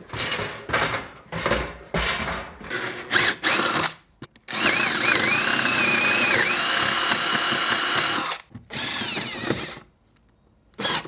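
Power drill counterboring screw holes in a timber batten overhead. It goes in several short bursts, then runs steadily for about four seconds with its motor whine dipping in pitch as the bit bites, then gives one more short burst.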